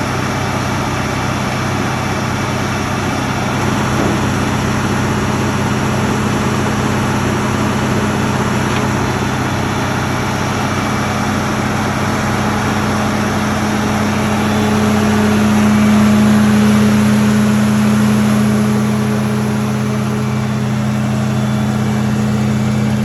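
Large diesel engine of a 2003 Morbark 950 tub grinder running at a steady speed. It grows slightly louder for a few seconds past the middle, then settles back.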